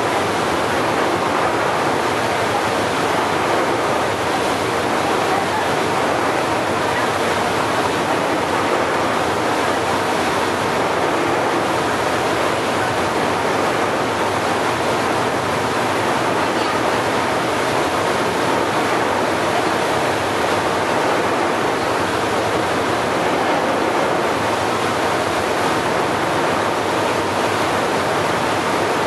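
Steady rushing noise of wind and sea waves, even at a constant loudness. No engine whine or other pitched sound stands out.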